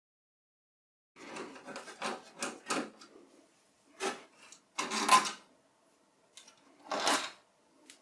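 A screwdriver taking screws out of a Mac Pro 1,1's metal memory cage: a run of short metallic scrapes and rasps about a second in, then a few louder single scrapes and rattles, the loudest about five seconds in.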